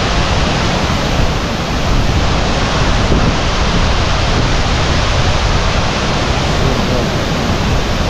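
Uchan-Su waterfall in flood, swollen by two days of rain: a loud, steady rush of falling water.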